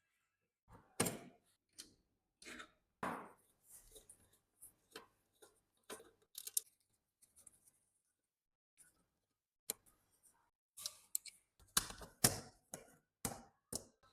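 Small metal typewriter parts being handled and worked on: irregular clicks, taps and short scrapes, in two clusters with a quiet gap in the middle.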